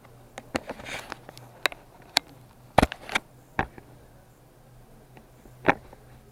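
A run of sharp clicks and knocks, about a dozen, irregularly spaced and bunched in the first four seconds, with one more loud knock near the end, over a faint steady low hum.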